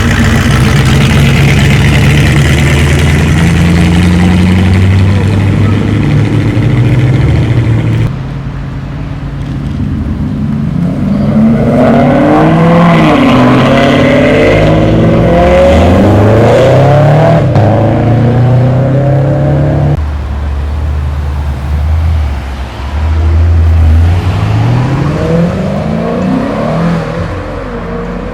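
Loud car engines accelerating away one after another, their pitch climbing and dropping back as they shift up through the gears. Between pulls they run at a steady note, with an abrupt change to a different car about eight seconds in and again near twenty seconds.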